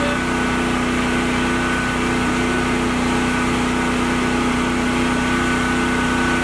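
Engine running steadily at idle, a constant hum with a few steady tones that does not change.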